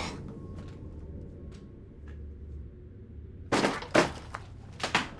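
A quick cluster of sharp knocks and thuds, about five or six, starting about three and a half seconds in, over a low steady hum.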